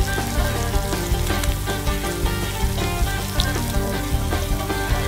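Sliced meat sizzling steadily on a flat-top steel griddle, with background music playing over it.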